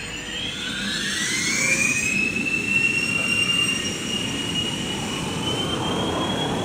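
Jet engines of a large cargo aircraft spooling up: a high whine climbs in pitch over the first two seconds, then holds and keeps rising slowly above steady engine noise.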